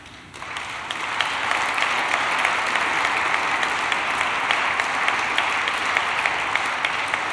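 Audience applauding: the clapping starts about half a second in, builds within a second, then holds steady and eases off slightly near the end.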